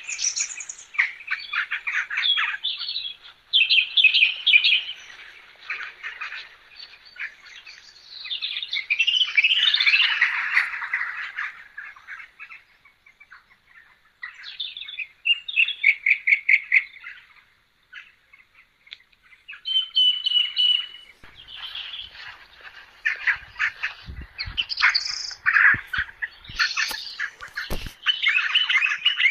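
Birds chirping and singing in phrases of quick repeated notes and trills, broken by short pauses, with a few faint low knocks near the end.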